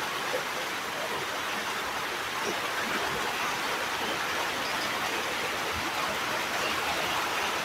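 Fairly heavy rain falling steadily, with a stream of rainwater pouring into a nearly full plastic water drum and splashing on the surface.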